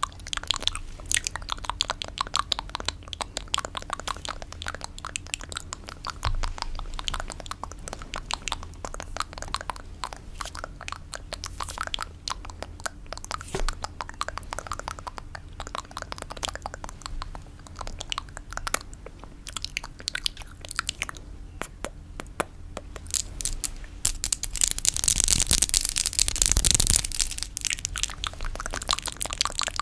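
Close-miked ASMR fingernail tapping: a dense, continuous run of quick crisp clicks, with a louder rushing swell near the end.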